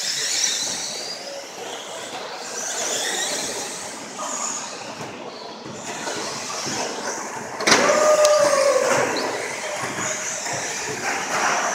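Radio-controlled stadium trucks racing: the high whine of their motors and tyre noise. About eight seconds in there is a sharp knock with a short tone after it.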